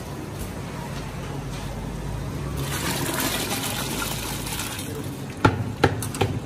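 Soaked chickpeas and their water pouring in a rush from a plastic drum into a large steel cooking pot, swelling louder about three seconds in. A few sharp knocks near the end.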